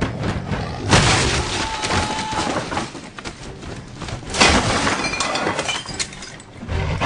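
Glass shattering in two big crashes, one about a second in and another just past four seconds, each trailing off in falling debris, among smaller sharp knocks and impacts.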